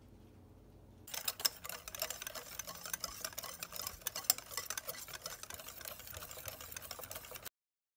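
Flour-and-water pancake batter being stirred fast in a bowl, the utensil scraping and tapping against the bowl in quick clicks. It starts about a second in and cuts off abruptly near the end.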